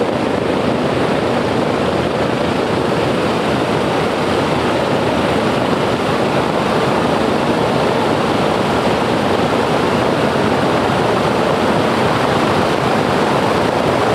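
Boeing B-29 Superfortress's Wright R-3350 radial engines running on the ground, heard at close range as a loud, steady roar.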